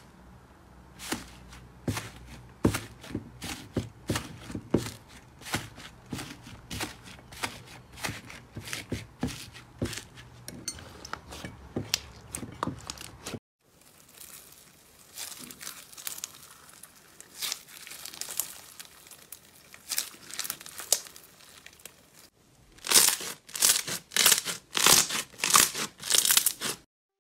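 Crunchy slime being pressed and squeezed by hand: a dense run of crisp crackles and snaps. First a tray of crispy-topped slime is pressed; after a short break about halfway, a bead-filled slime is squeezed, ending in about eight louder bursts of crackling.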